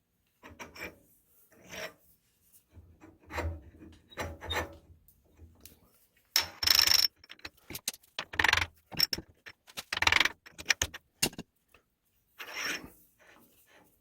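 Irregular scraping, rubbing and clinking of metal parts being handled on a milling machine table as the clamped shaft and strap clamp are shifted and repositioned. The loudest scrape comes about six and a half seconds in.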